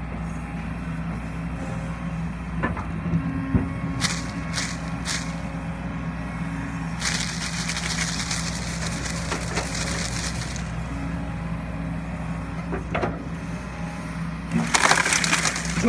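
Kobelco SK140-8 excavator's diesel engine running steadily while the tree it is pushing over cracks and splinters. There is a long rushing crackle about seven seconds in and a louder burst of cracking near the end.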